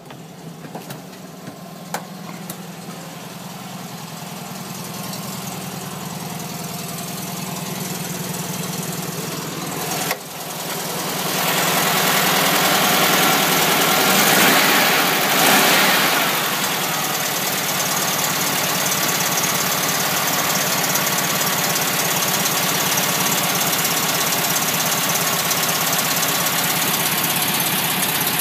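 Freshly rebuilt single-port 1600 air-cooled VW flat-four idling. For the first ten seconds it is heard muffled from inside the cab, then much louder at the open engine bay. About halfway through, the throttle is opened briefly by hand at the carburettor and the engine revs up, then it settles back to a steady idle.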